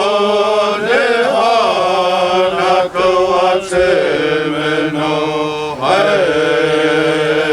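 A slow, chant-like prayer song being sung, with long held notes that waver in pitch and short breaks between phrases.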